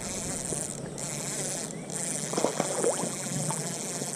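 Steady high-pitched insect drone that cuts out briefly twice, with a few faint short chirps about halfway through.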